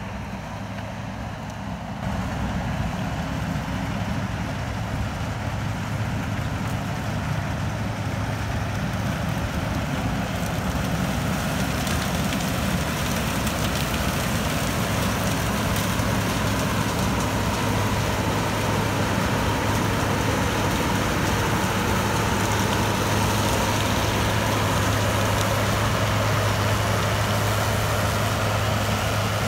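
New Holland combine harvester running steadily while harvesting sunflowers: a deep engine hum under the rushing noise of the header and threshing, growing slowly louder as it nears. About two seconds in, the sound steps up sharply from a quieter vehicle-cab engine sound.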